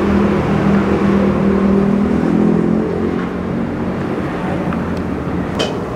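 Engine of a motor vehicle running on the street, a steady hum that fades out about three seconds in, over constant street noise. A short clink near the end.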